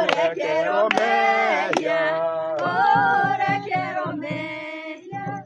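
Several voices singing a worship song together, with a few sharp strikes among the singing. It cuts off suddenly near the end.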